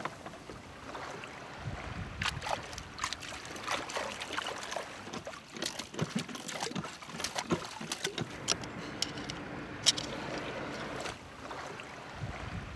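Water lapping and sloshing, with many small irregular clicks and knocks. A faint steady hum comes in about nine seconds in and fades about two seconds later.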